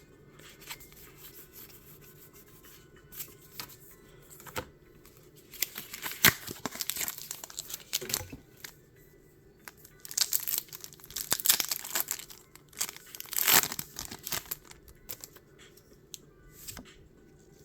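Pokémon TCG blister packaging and booster pack foil wrappers being torn open and crinkled by hand, in several bursts. The loudest burst is about thirteen seconds in, with quieter rustling between bursts.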